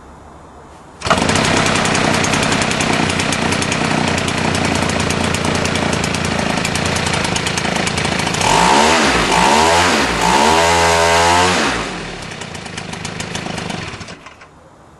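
Brand-new Zenoah G62 62 cc two-stroke model-aircraft engine turning a 23x8 propeller on its break-in run: it starts on a flip of the prop about a second in and runs steadily. About halfway it is revved up and down a few times, then drops to idle and stops shortly before the end.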